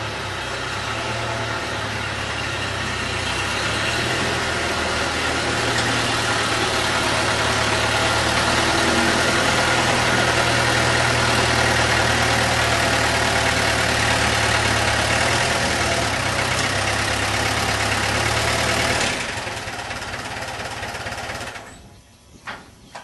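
The rebuilt engine of a 1964 Allis-Chalmers D15 Series II farm tractor running steadily as the tractor is driven out, growing louder over the first dozen seconds. The engine sound cuts off about 19 seconds in, and after a short lower hum it goes quiet near the end.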